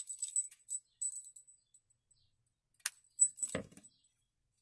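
Fabric squares being handled and laid down on the sewing work table: light crinkly rustling and small clicks, with a sharp click near three seconds in and a fuller tap just after.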